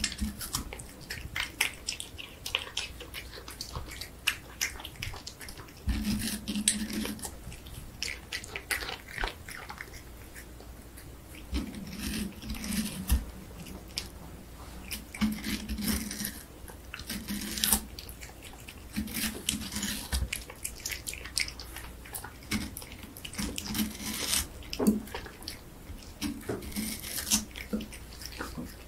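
A cat licking and biting into a wedge of juicy watermelon: irregular wet smacking and crunching clicks, with short low hums every few seconds.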